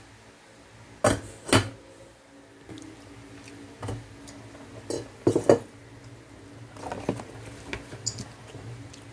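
Kitchen utensils and cookware knocking and clinking: a wooden spatula set down near a steel saucepan, then several more scattered knocks, the loudest about five and a half seconds in. A low steady hum runs underneath.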